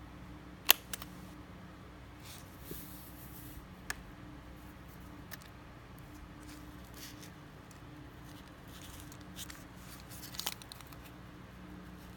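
Small metal clicks and soft squeaky rustling of foam as a spring-loaded safety-pin double hook is handled in a foam ring, with one sharp click about a second in and a cluster of lighter clicks near the end.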